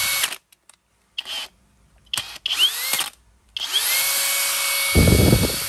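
Flex FX1271T 24V cordless brushless drill running free in several short trigger pulls, each spinning up with a rising whine, then a longer run of about three seconds. A loud, low rattle joins in briefly about five seconds in.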